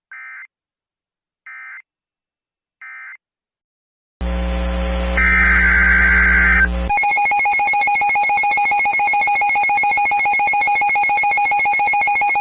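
Emergency Alert System tones. Three short digital data bursts about a second and a half apart close out one alert. About four seconds in, a loud electrical hum starts, with a burst of data tones over it. About seven seconds in, the steady two-tone EAS attention signal begins and holds.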